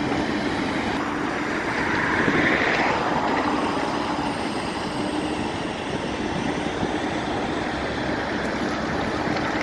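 Steady vehicle and engine noise, with a faint hum that comes and goes.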